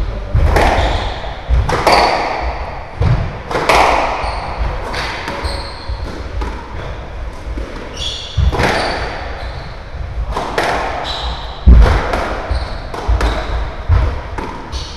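Squash rally: the ball is struck by rackets and slams off the court walls in sharp, irregular smacks that echo around the court. Short high squeaks between the shots come from the players' shoes on the wooden floor.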